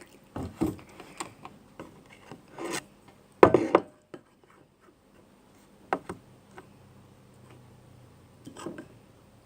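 Sticky slime being stirred in a container as activator is mixed in: irregular rubbing and scraping strokes, the loudest a short burst about three and a half seconds in.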